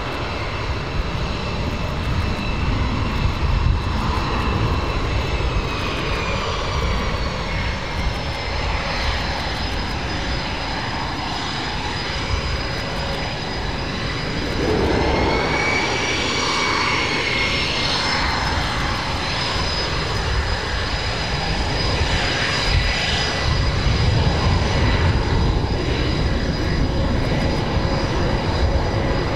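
Boeing F/A-18E Super Hornet's twin General Electric F414 turbofans at taxi power as it turns onto the runway: a steady rumble under a high turbine whine. The whine dips early on, then rises with a slightly louder rush about halfway through as power comes up.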